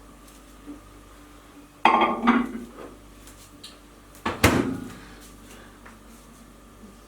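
Kitchen dishes and a utensil clattering: a burst of knocking and scraping about two seconds in, then a single sharp knock with a brief ring a couple of seconds later.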